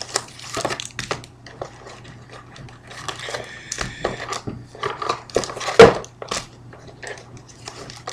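Foil-wrapped trading card packs being pulled from a cardboard box and laid on a wooden table: a run of rustling, crinkling and light taps, with one sharper knock a little under six seconds in.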